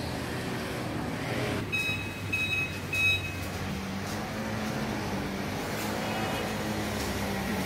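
Steady street traffic noise, with three short high electronic beeps about two seconds in and a low steady hum through the second half.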